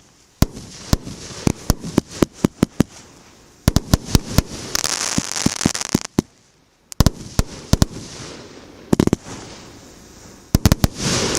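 Multi-shot fireworks cake (MB151 'Vzryv emotsiy') firing in volleys: quick runs of sharp bangs, several a second, each run followed by a hissing crackle of the bursts. The crackle is loudest about five seconds in and again near the end.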